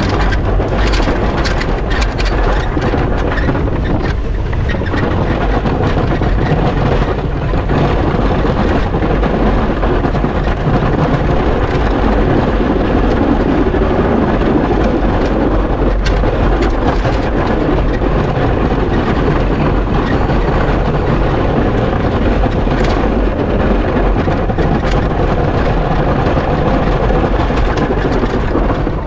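Pickup truck with a Fisher plow pushing heavy wet snow: engine running under load together with the blade's scraping and pushing noise, a loud steady mix with no breaks.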